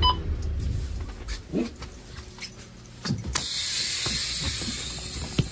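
School bus engine shut off with the ignition key: its steady idle cuts out right at the start. What follows is quieter, with a couple of short falling squeals, a steady hiss setting in about three and a half seconds in, and a sharp click near the end.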